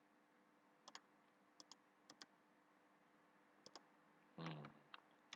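Faint computer mouse clicks, mostly in quick pairs like double-clicks, with a brief louder low sound about four and a half seconds in, over a faint steady hum.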